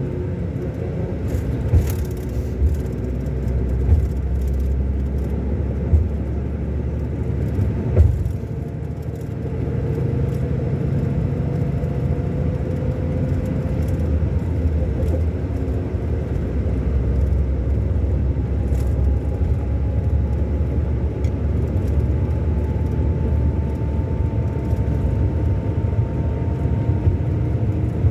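Scania K400 Euro 5 coach engine, a 13-litre inline six, running steadily under way with a deep rumble. Its pitch climbs gradually through the middle. A few short knocks come about two seconds apart in the first eight seconds.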